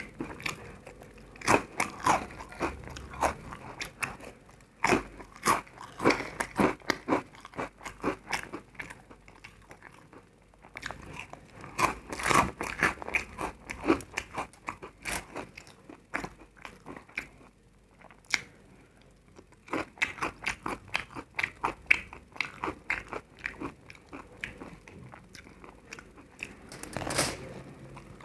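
Close-miked eating sounds: food bitten and chewed with many sharp crunches in quick runs, easing off to quieter chewing for a few seconds past the middle.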